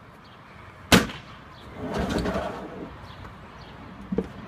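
Plastic wheeled trash bin: a single sharp slam about a second in, as its lid drops shut. It is followed by a short rumble of its wheels on the concrete as it is tipped and rolled, and a light knock near the end.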